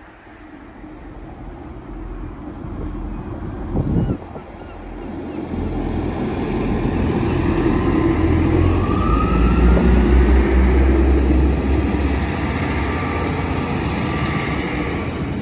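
Diesel train running close by, its engine growing louder as it draws near and then easing slightly. There is a single sharp knock about four seconds in and a short rising whine about two-thirds of the way through.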